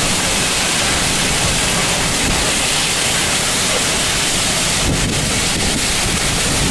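Severe thunderstorm wind with heavy rain: a loud, steady rush of noise, with wind buffeting the microphone.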